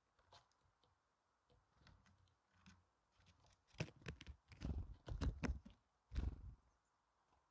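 Great tit landing on snow right by the microphone and pecking at a pile of grain: a quick run of soft close taps and thumps, loudest just before the end.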